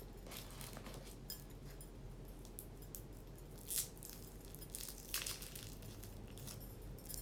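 Faint, irregular clicks and brief rustles of a phone being handled and tapped close to the microphone, the loudest a little before the middle and again about two thirds of the way through.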